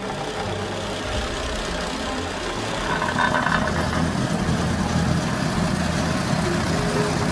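Engine of road-works machinery running steadily, getting louder about three seconds in.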